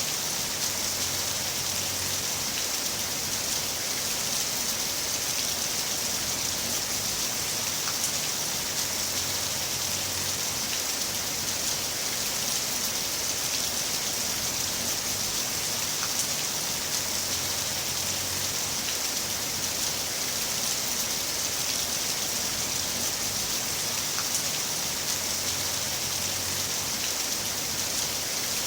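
Heavy rain falling steadily: an even hiss with scattered sharper drop ticks.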